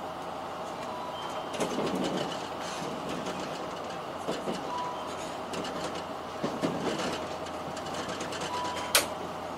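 Rolling noise inside the Sonic limited express train as it pulls into a station, with scattered wheel clicks over rail joints. A few short faint beeps sound, and a sharp click near the end is the loudest moment.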